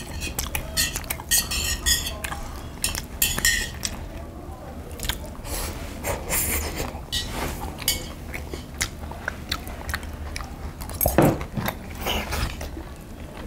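Several people eating: chewing and crunching, with chopsticks clicking against brass bowls and plates being picked up and set down. A louder clunk of a dish comes about eleven seconds in.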